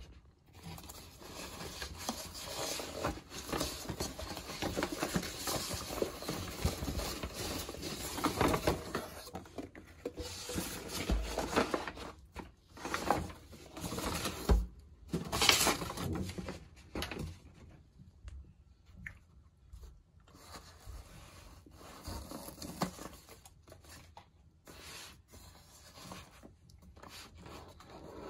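Paper and cardboard rustling and scraping as a cardboard gift box is pulled out of a paper shopping bag and handled, with a couple of thumps about halfway through. The rustling thins out over the last third.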